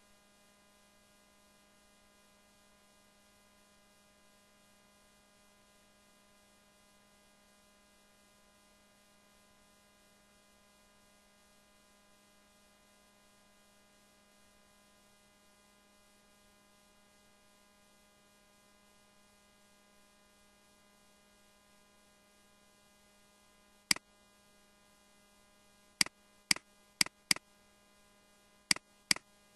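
Faint steady electrical mains hum for most of the time. About three-quarters of the way in, sharp clicks begin: one on its own, then six more in quick succession, some in close pairs.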